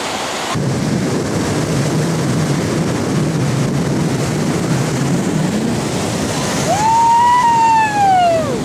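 Surf breaking and washing, with wind on the microphone. Near the end a person gives one long, high-pitched whoop that rises and then falls in pitch.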